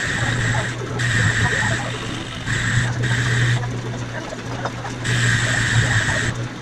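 Metal lathe running with a steady low motor hum, while the cutting tool turning a steel part sets up a high whine that comes and goes about four times as the cut engages and lets off.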